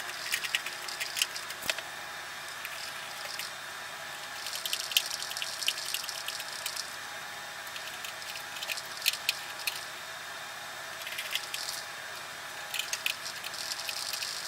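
Screws being driven by hand with a screwdriver into the metal drive bay of a PC case to mount an optical drive: several bursts of small clicks and scraping as the screwdriver turns, with pauses between screws.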